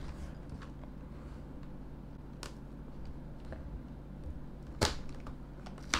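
Cardboard LEGO set box being handled and pushed open at its perforated thumb tabs: faint scattered taps and clicks, with one sharp snap about five seconds in, over a faint steady hum.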